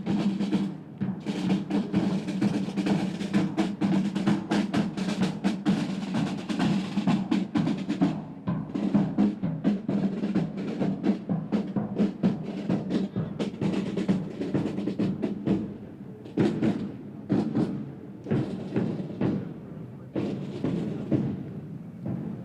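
Parade drums playing: a dense run of rapid strokes and rolls, thinning to sparser, separate beats after about eight seconds.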